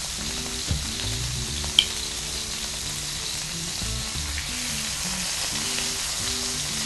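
Mahi mahi fillets sizzling steadily in olive oil in a ridged grill pan over medium-high heat. One sharp click about two seconds in.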